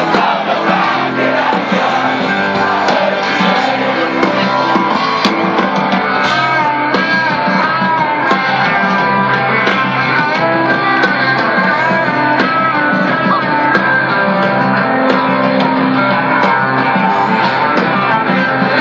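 Live rock band playing amplified music: electric guitars, bass and drums with singing, loud and continuous.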